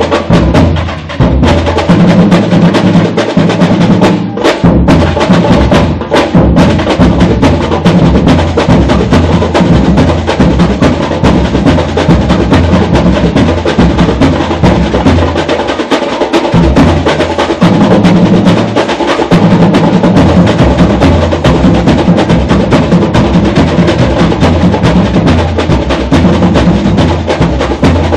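Samba batería playing a samba-enredo groove: deep surdo bass drums under a dense, steady pattern of snare drums and small hand percussion. The bass drums break off briefly a little past the middle.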